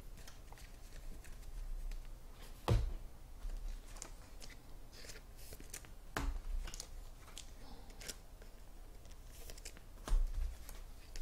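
Trading cards handled and set down on a table: scattered light ticks and rustles, with a few sharper knocks about three, six and ten seconds in.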